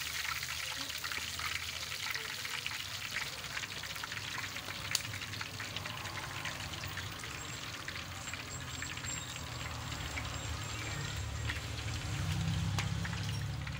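Hot oil in a karahi sizzling and crackling from deep-frying battered fish, with one sharp click about five seconds in and a low rumble swelling near the end.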